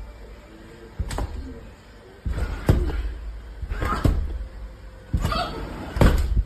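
Wind buffeting the microphone with a low rumble that comes and goes in gusts, broken by a series of sharp bangs, about one every second or so.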